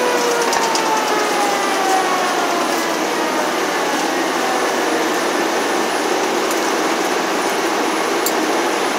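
Loud steady rushing of a fire truck under way, engine and road noise heard inside the crew cab. Its siren winds down over the first few seconds, the pitch slowly falling away.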